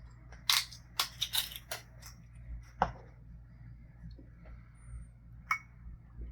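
Bottle and glassware being handled while a measure of Hornitos reposado tequila is poured: a run of sharp clicks and glassy clinks, most of them in the first two seconds, another about three seconds in and one more near the end.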